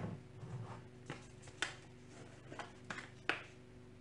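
A handful of light, sharp clicks and taps from kitchen utensils and containers, about five spread unevenly over a few seconds, over a faint steady hum.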